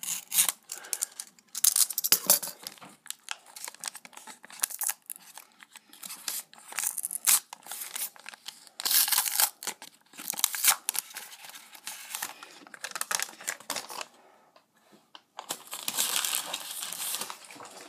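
Foil wrapper of a 1990–91 Upper Deck NHL hockey card pack being torn open and crinkled by hand: a long run of sharp crackles and rustles, with louder bursts of crinkling about halfway through and again near the end.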